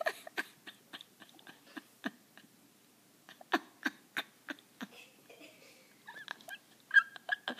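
A dog moving about, its claws giving irregular light clicks on a hard floor, with a few short high whines about six seconds in.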